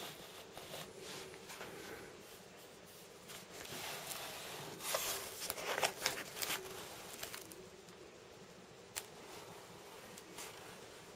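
Rubbing and scraping as a motorcycle half-shell helmet is turned by hand on its stand on the table, loudest about halfway through, with scattered small clicks. A faint steady hum runs underneath.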